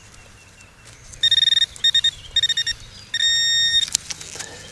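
Metal detecting pinpointer beeping as it is swept through dug soil: a run of short beeps, then a steadier tone lasting under a second near the end, signalling metal close to its tip.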